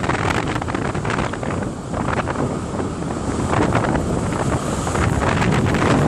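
Strong wind buffeting the microphone, with the steady rush of the open sea beneath it.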